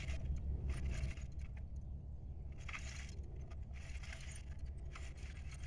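Wheeled push garden seeder rattling and jingling as it is pushed along a furrowed row, over a steady low rumble.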